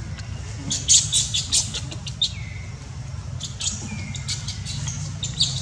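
Quick runs of high-pitched chirps and squeaks, a cluster about a second in, more around four seconds and again near the end, with a couple of short falling whistles, over a steady low hum.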